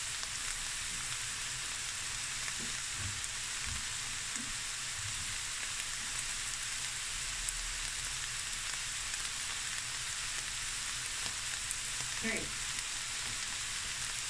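Beef mince sizzling steadily in a stainless steel frying pan on the hob, with a few faint small pops.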